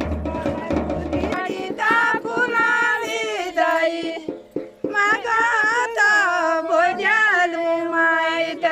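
A high voice singing a traditional Pahadi folk song unaccompanied for most of the stretch, with long held notes that waver and glide between phrases. A low drum beat stops just over a second in, and sharp clicks or knocks sound through the middle.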